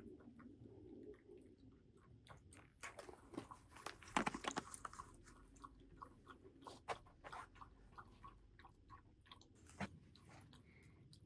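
Crunchy chewing: irregular sharp crunches and bites of something hard and dry being eaten, at a low level.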